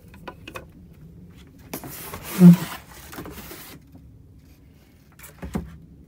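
Cardboard shipping box being opened by hand: a couple of light clicks, then about two seconds of cardboard scraping and rustling with a heavy thud in the middle, and a few more knocks near the end.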